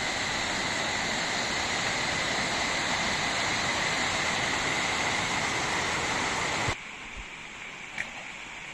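Waterfall pouring, a steady loud rush of water; a little over two-thirds of the way in it cuts suddenly to a quieter rush of flowing water.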